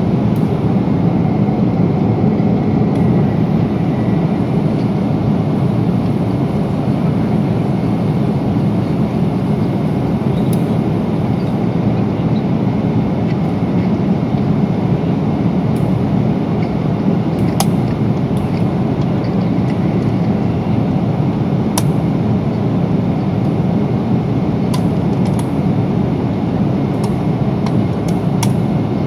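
Steady cabin noise of a Boeing 777-300 at cruise: the even, low roar of its jet engines and the airflow over the fuselage. A few faint clicks sound here and there in the second half.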